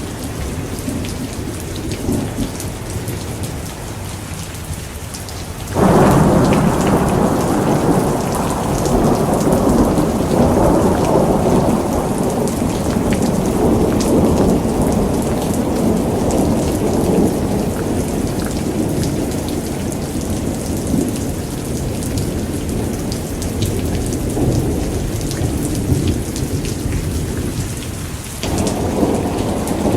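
Steady rain with a thunderclap about six seconds in that rolls on as a long rumble, slowly fading over some twenty seconds. Another clap of thunder breaks near the end.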